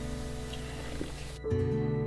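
Soft instrumental background music with sustained notes; about one and a half seconds in, a faint background hiss drops away and a new chord begins.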